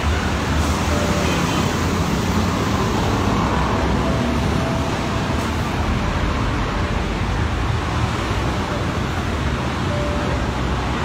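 Steady roadside traffic noise: a continuous low rumble of vehicles on the road.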